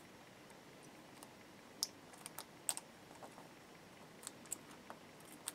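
Faint, scattered small clicks and crinkles of a scalpel blade cutting and peeling copper foil shielding tape out of a guitar pickguard's cavities, with about a dozen irregular ticks from about two seconds in.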